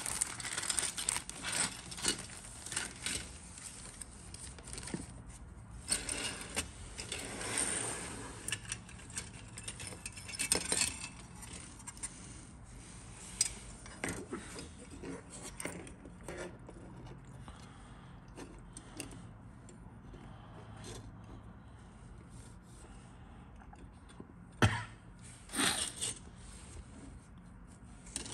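A clear plastic kit bag crinkling as injection-moulded plastic sprues are worked out of it, then the hard plastic sprue frames and parts clicking and scraping against each other as they are handled. Two sharper knocks near the end as parts are set down.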